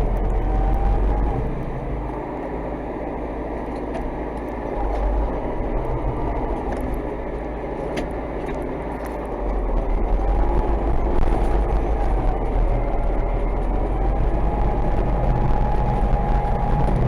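DT-75 crawler tractor's diesel engine running as the tractor drives, with faint clatter; the engine grows louder about ten seconds in.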